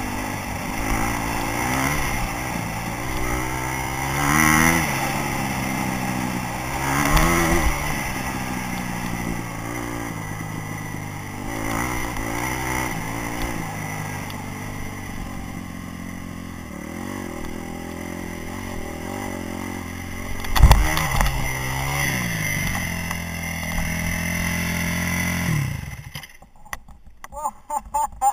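Dirt bike engine revving up and down repeatedly while riding a rough trail, with one loud knock about two-thirds of the way through. Near the end the engine cuts out abruptly as the bike goes down in a muddy puddle, leaving small splashes and clicks.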